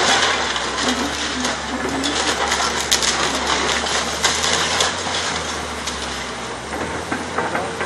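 Hydraulic excavator demolishing a building: its diesel engine runs steadily underneath while masonry and debris crash and clatter down in many sharp knocks.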